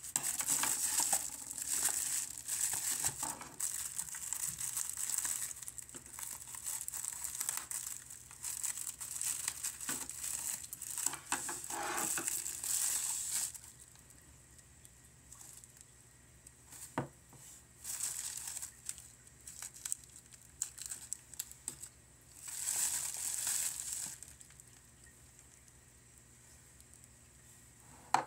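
Packaging crinkling and tearing as it is unwrapped by hand. The crinkling is dense for the first half, then thins to scattered rustles with one sharp click, and another short burst of crinkling comes near the end.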